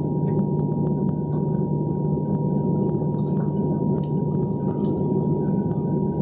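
Steady cabin drone inside a parked Boeing 737-800 with the air-conditioning running, carrying a constant high-pitched whine and a few faint clicks.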